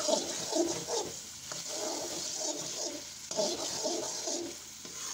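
Metal spatula stirring and scraping pumpkin halwa around a metal kadai, over a steady sizzle of the mixture cooking in ghee.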